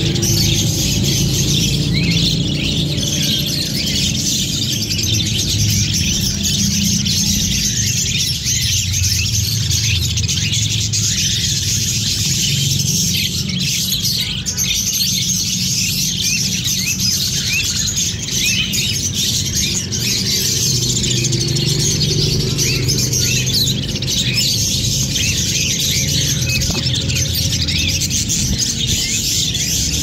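A flock of budgerigars chirping and chattering continuously, many birds at once in dense, overlapping warbles. A steady low sound runs underneath.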